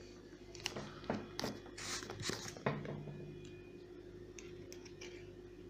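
Handling noise from a homemade air rifle: a few light clicks, knocks and scrapes, busiest around two seconds in, over a faint steady hum. No shot is fired.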